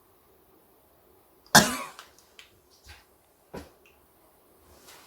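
A person's sharp, involuntary burst of breath, the reflex set off by a nasal swab in the nostril, about a second and a half in, then a second, shorter burst about two seconds later.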